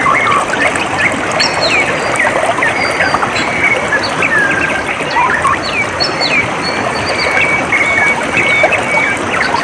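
Water trickling steadily, with many small birds chirping and whistling over it in short, quick calls.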